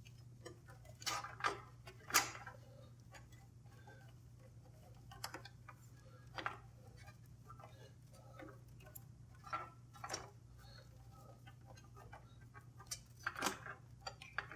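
Scattered light clicks and taps of cables and plastic connectors being handled and plugged in inside a computer case, a few seconds apart, over a steady low hum.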